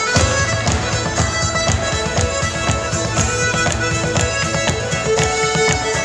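Live contra dance band of fiddle, piano accordion and acoustic guitar playing a reel-style dance tune, with held fiddle and accordion notes over a steady strummed beat.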